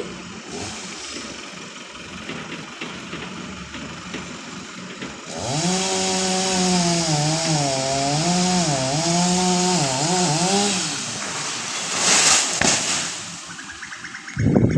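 Chainsaw running, its engine pitch rising and dipping repeatedly as the throttle is worked for several seconds from about five seconds in. A burst of noise follows, and a loud heavy thump comes at the very end.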